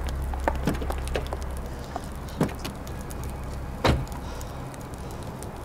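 High heels clicking quickly on paving, then car doors opening and thudding shut, the loudest thud about four seconds in and another at the very end, over a steady low hum.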